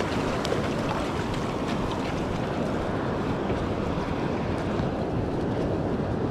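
Steady wind rumbling on the microphone over surf washing up the beach.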